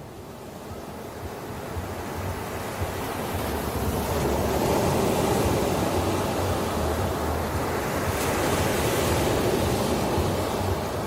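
Ocean surf: waves breaking and washing in. The sound swells from softer to loud over the first four seconds, with a brighter hiss of foam around eight seconds in, and eases a little near the end.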